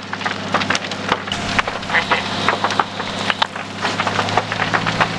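Burning wood-framed garage crackling and popping with many irregular sharp cracks, over a steady low engine hum.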